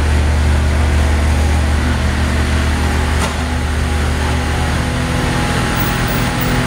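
Small motorcycle engine idling steadily, a low, even hum. There is a faint click about three seconds in.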